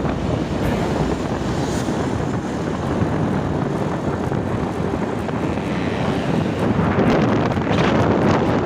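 Wind buffeting the microphone and road noise from a moving motor scooter, a steady rushing noise that swells about seven seconds in.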